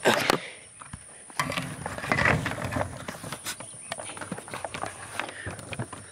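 A person climbing through a barbed-wire fence into grass and brush: clothing and the handheld camera rustling, brushing and knocking, with scattered footsteps. There is a loud knock right at the start.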